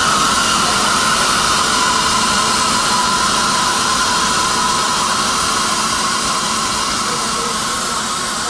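Steady industrial machine noise: an even hiss with a constant hum, easing off slightly near the end.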